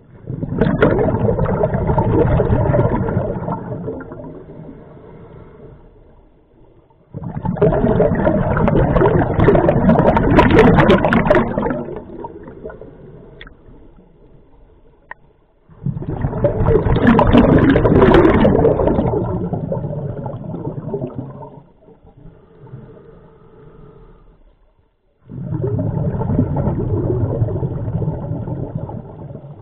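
Scuba diver breathing through a regulator, with the exhaled bubbles rushing past close to the microphone. There are four loud bursts of bubbles about every nine seconds, each starting suddenly and fading over a few seconds, with quiet gaps for the in-breaths between.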